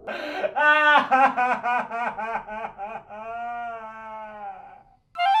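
A man's exaggerated, theatrical wailing: a run of quick sobbing cries, about five a second, then one long drawn-out cry that sags slightly in pitch. It breaks off near the end and flute music cuts in with a rising note.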